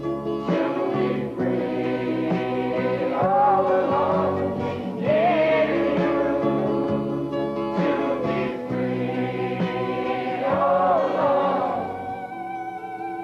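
Background music with a choir of voices singing sustained chords over instruments.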